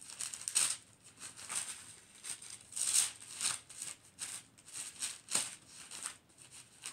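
Thin pages of a small Bible being leafed through by hand: an irregular run of quick papery rustles and flicks.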